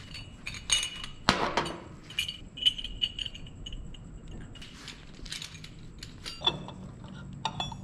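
Scattered light clicks and clinks of metal parts, a CV joint flange and small hardware, being handled on a steel workbench, some with a brief high ring.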